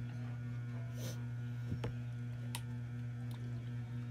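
Steady low electrical hum, with a short rustle about a second in and a few light clicks as a small plastic bottle is handled and its cap taken off.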